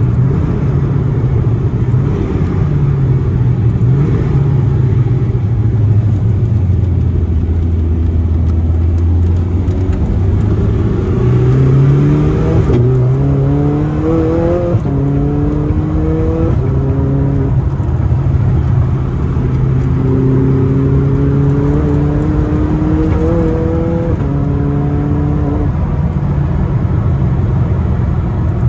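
Zenvo TSR-S's twin-supercharged 5.8-litre V8 running at a steady note, then accelerating through the gears twice, about halfway in and again later. Its pitch climbs and drops back at each shift.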